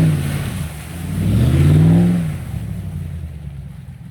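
Off-road 4x4 truck engine revving hard in mud: the engine note drops, climbs again to a peak about two seconds in, then fades away.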